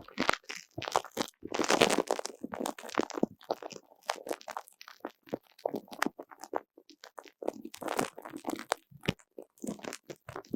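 Sticky spiky squishy ball toy being handled and squeezed close to the microphone, its tacky surface peeling and crackling in irregular bursts with sharp little clicks.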